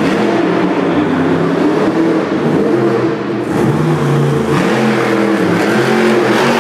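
Maximum Destruction monster truck's supercharged V8 engine revving up and easing off again and again as the truck drives and spins on the dirt.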